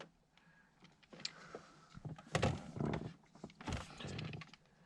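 Hand-handling of a Mustang Foxbody HVAC temperature control assembly and its new cable: scattered small clicks and short sliding scrapes of parts being fitted and moved, the longest scrapes about halfway through and near the end.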